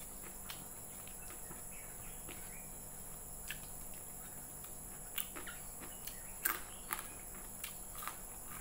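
Mouth sounds of someone eating fried rice vermicelli by hand: scattered short wet clicks and smacks of chewing, the loudest about six and a half seconds in, over a faint steady high hiss.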